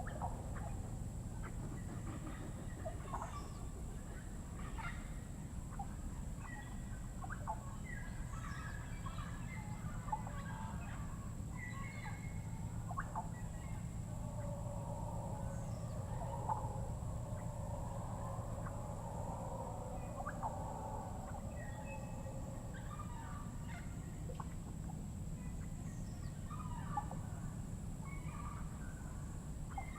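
Panamanian rainforest animal chorus: many short bird calls and chirps scattered throughout. A denser stretch of lower, overlapping calls runs through the middle. Underneath is a steady high whine and a low rumble.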